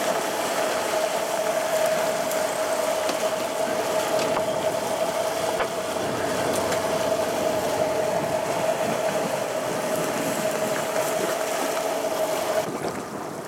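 Boat engine running steadily with a constant whine, over wind and water noise; the whine cuts off suddenly near the end.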